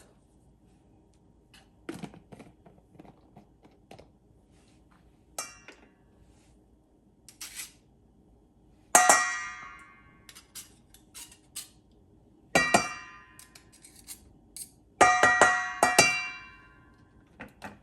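A utensil knocking against a bowl: three loud clusters of sharp clinks that ring on briefly, with a few lighter taps in between.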